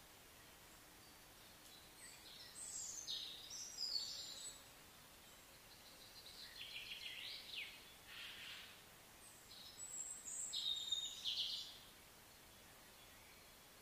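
Birds singing, three short spells of chirps and quick trills, faint, over a steady outdoor background.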